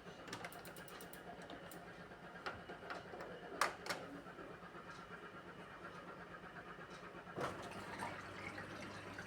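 Beko washing machine starting a drain cycle: a few faint clicks, then about seven seconds in the new drain pump starts with a low, steady hum as it pumps the water out.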